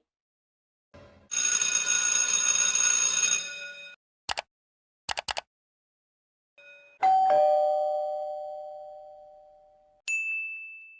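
Sound-effect clips in a row: a bright ringing sound for about two and a half seconds, then a few quick clicks, then a two-note doorbell ding-dong, high then low, ringing out for about three seconds, and a short high ding near the end.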